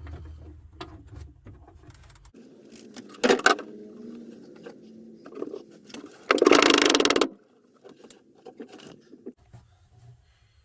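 Impact wrench undoing a rusted rear subframe bolt on a Classic Mini. The motor runs for about seven seconds with two loud bursts of hammering, a short one and then a longer one of about a second. The bolt comes free without shearing.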